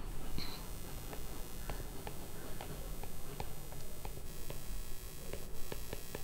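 Light, irregular ticks of a stylus tapping on a tablet screen as a heading is handwritten, several per second over a low steady hum.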